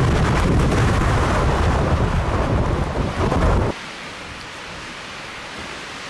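Strong wind buffeting the microphone, a heavy low rumble that cuts off abruptly a little past halfway, leaving a softer, steady wind hiss.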